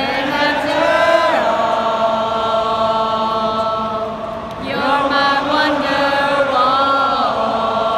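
A large stadium crowd singing a song together in long held notes, the tune shifting pitch a few times.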